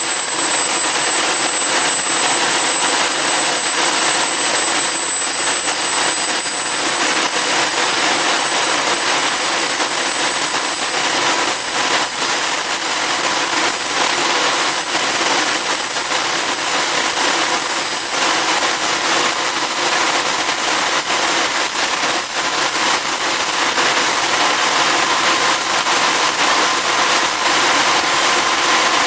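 Homemade turbojet engine, the HX Monster Mark 2, running steadily: a loud, even jet rush with a thin high-pitched whine on top that creeps up very slightly in pitch.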